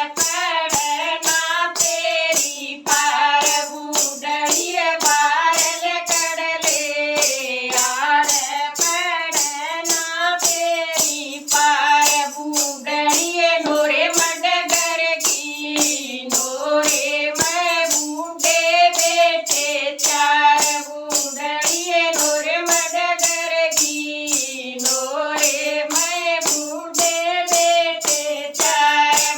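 A woman singing a folk bhajan over a quick, even beat of jingling strokes, about three a second.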